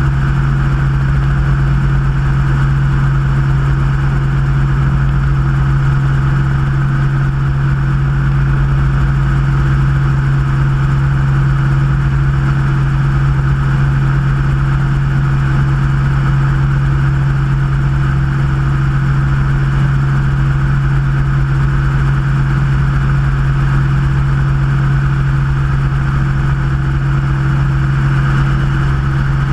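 Helicopter in steady cruise flight, heard from a camera mounted on the outside of its fuselage: an unchanging loud drone of engine and rotor with a strong steady low tone, over wind rush and rumble.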